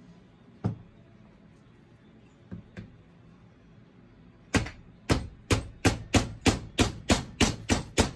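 Hammer tapping a new piston down through a ring compressor into a VW air-cooled cylinder barrel. A few separate knocks come first, then from about halfway through a run of quick, even taps, about three a second.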